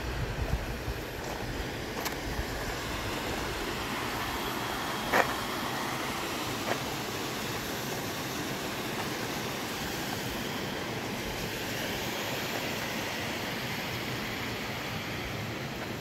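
A steady rushing noise, with a sharp click about five seconds in and fainter clicks near two and seven seconds.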